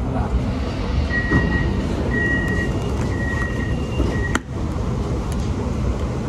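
Steady low rumble inside an MRT Putrajaya Line train, with four short electronic beeps about a second apart, then a sharp click.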